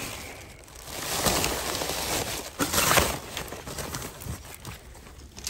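Plastic bags and clear plastic wrap rustling and crinkling as trash is rummaged through by hand, in irregular bursts, the loudest about three seconds in.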